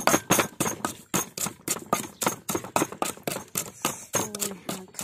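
Wooden pestle pounding chilies and garlic into a paste in a deep wooden mortar, a steady run of dull knocks at about four strokes a second.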